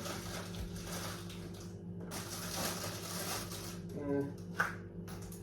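Snack packets and packaging rustling and crinkling as they are handled and packed into a fridge, in two stretches, over a steady electrical hum. A short tone sounds about four seconds in, followed by a click.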